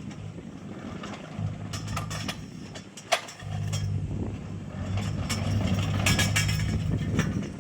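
Kobelco SK015 mini excavator's diesel engine running, its note growing stronger about three and a half seconds in, with scattered metallic clanks and scrapes from pulling greenhouse pipes out of the ground. A single sharp knock about three seconds in.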